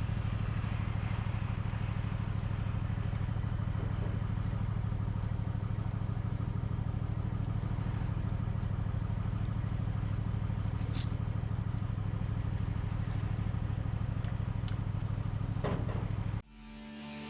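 An engine running steadily at a constant speed, with a few faint clicks over it. It cuts off abruptly near the end, where music comes in.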